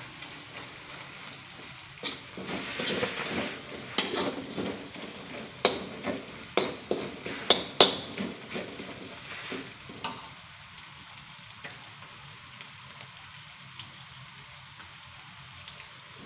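Ground spice paste sizzling in hot oil in a steel wok as it is fried until fragrant. From about two to ten seconds in, a metal spatula scrapes and clacks against the wok while stirring, leaving only the steady sizzle after that.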